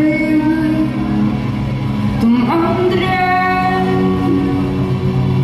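A woman singing a Swedish song live over her electric guitar and band. She holds long notes and slides up into a new note about two and a half seconds in.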